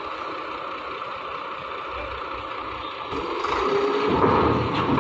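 A UD Quester diesel tractor unit pulls a dump trailer at low speed, its engine running steadily. About three seconds in the engine gets markedly louder as the truck comes alongside.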